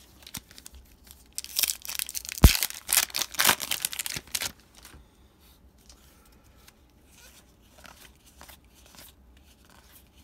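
A foil trading-card pack wrapper is torn open with a crinkling rip, and one sharp snap in the middle of it. Then the freed cards are handled with faint ticks and rustles.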